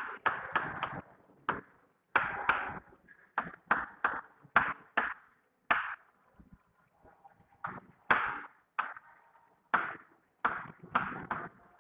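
Chalk writing on a blackboard: an irregular series of sharp taps and short scrapes as the chalk strikes and drags across the board, each with a brief ring, with a couple of short pauses between words.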